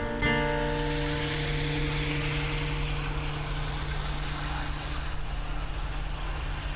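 A steady low drone with a broad hiss, like a running engine or a passing aircraft. The last held guitar chord fades out under it over the first few seconds.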